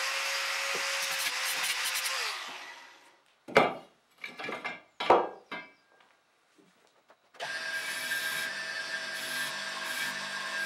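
An angle grinder cuts steel angle iron and spins down about two and a half seconds in. A few loud knocks follow. Then, from about seven seconds in, a spinning abrasive disc runs with a steady whine as steel angle iron is ground against it.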